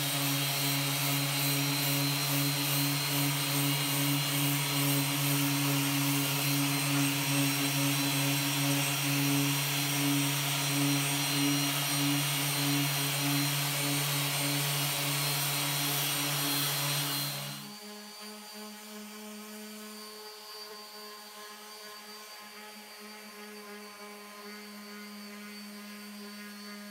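Random orbital sanders running on the end grain of a walnut board: a steady motor hum with a bright sanding hiss. About 17 seconds in, the sound drops suddenly to a much quieter sander with a single higher hum.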